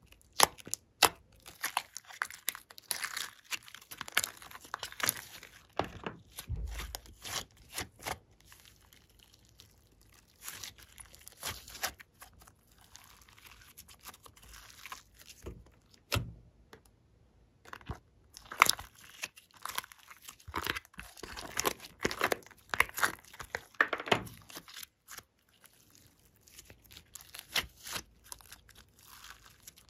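Glossy slime being pressed, stretched and folded by hand, making irregular runs of sharp clicks and pops. There is a quieter spell about halfway through.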